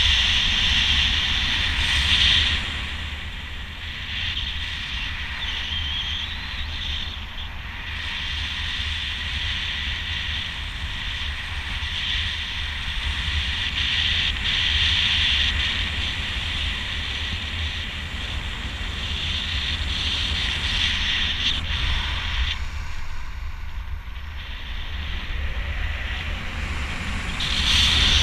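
Wind rushing over the camera microphone while flying under a speedflying miniwing: a low buffeting rumble with a hiss that swells and eases, loudest near the start and again near the end.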